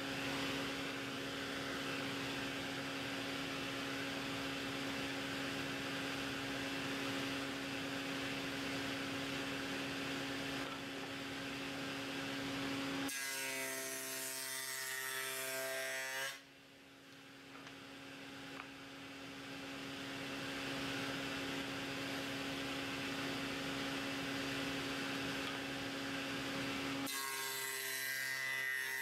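Table saw with a dado blade running with a steady hum. Twice, about 13 seconds in and again near the end, a pine cleat is pushed through the dado to cut a rabbet, and the sound turns harsher and changes pitch for a few seconds. After the first cut the sound drops away and swells back over several seconds.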